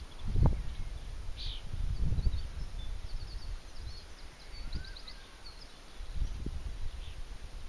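Wind gusting on the microphone, with small birds chirping in short high notes and quick twittering runs.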